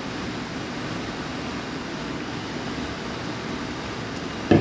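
Steady low rumbling hum of background noise, broken by one loud thump near the end.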